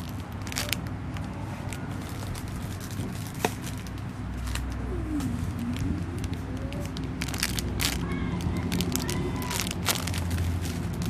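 Plastic packaging crinkling and crackling in irregular bursts as it is handled and opened.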